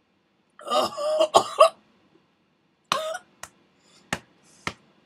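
A woman coughing and clearing her throat just after swallowing a sip of wine, with a loud burst about half a second in and a shorter one near the middle, followed by a few sharp short clicks.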